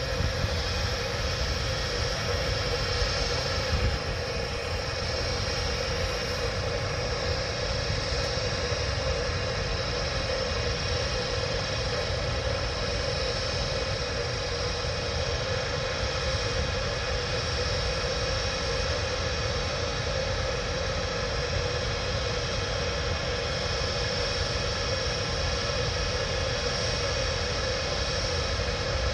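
ÖBB class 1116 Taurus electric locomotive standing with its train, its cooling fans and converters running with a steady hum and whine.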